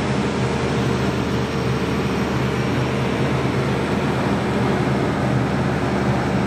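Truck-mounted crane's engine running steadily, a low hum with an even rushing noise over it.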